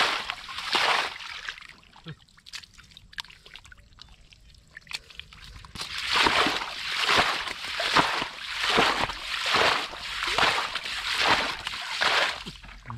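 Shallow muddy water sloshing and splashing in a steady rhythm, about one splash every three-quarters of a second, as a person moves through it by hand or foot. From about two to six seconds in it drops to faint drips and trickles.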